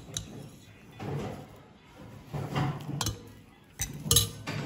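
Steel spoons clinking against ceramic bowls of dal as it is served: a few sharp clinks, one just after the start and a cluster about three to four seconds in, over faint background talk.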